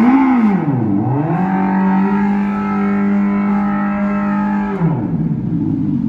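Revolt RV400 electric motorcycle's built-in artificial engine sound, played through its speaker as the throttle is twisted. It gives a quick rev that rises and falls, then rises again and holds a steady note for a few seconds, then drops back to a low idle-like note.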